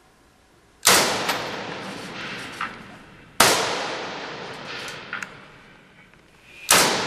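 Three single rifle shots from a SIG 550-type 5.56 mm rifle (SIG PE90), about three seconds apart, each ringing on for a couple of seconds in the underground rock tunnel range. Fainter sharp cracks sound between them.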